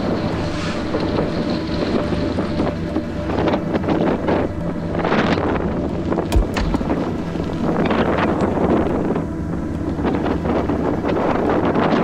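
Strong gusting wind of around 50 to 60 mph buffeting the microphone: a loud rushing noise that swells and eases with each gust. A single sharp knock sounds about six seconds in.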